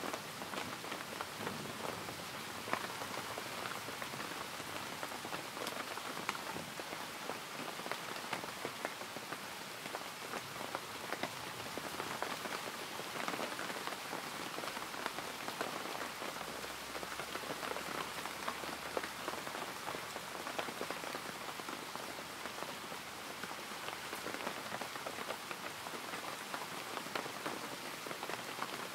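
Rain falling steadily: an even hiss made of many small drop ticks.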